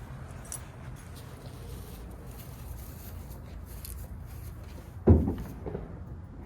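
A single sharp thump about five seconds in, over a low steady rumble.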